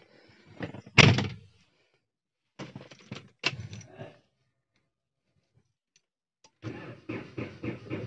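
A car door shuts with a thunk about a second in, followed by a brief rattle of keys. Near the end the starter cranks the Hyundai car's engine in a quick, even rhythm after the car has stood unused for many days, and the engine catches at the very end.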